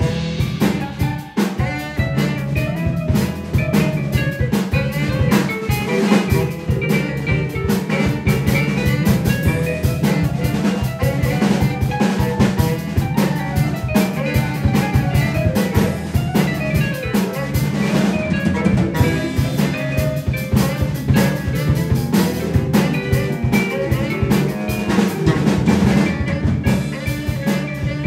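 A small live jazz band playing: a saxophone carries a wavering melody over a drum kit, bass and keyboard, with dense, busy drumming.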